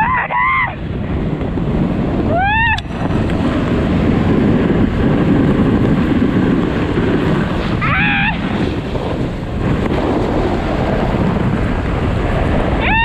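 Loud, steady wind rush over the microphone as a snow tube is towed at speed behind a snowmobile. Four short, high yelps rise and fall in pitch, a few seconds apart.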